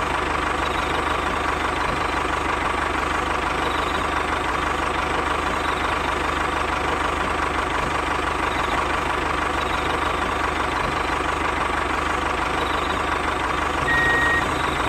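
Motor of a miniature model tractor running steadily at an even pitch, with a steady whine over a low, even pulsing.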